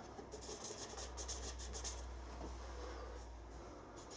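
Marker pen drawing on a hard plastic lid: a quick run of faint scratchy strokes as the tip traces an outline.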